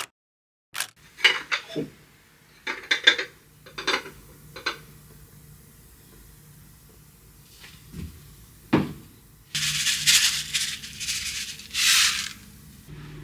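Ceramic dishes clinking as fried rice is plated: a run of sharp clinks of a bowl and plate knocking together, one more knock later, then a few seconds of dense rustling, scraping noise near the end.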